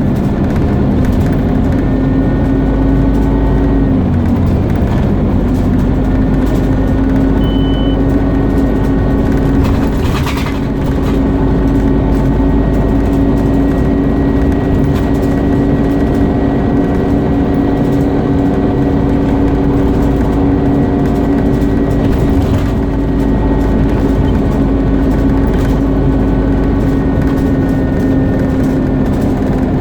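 Scania CN230UB OmniCity single-deck bus under way, its engine and driveline running with a steady, loud vacuum-cleaner-like whine. The pitch dips briefly about four seconds in and again around ten seconds, then settles back to the same even whine.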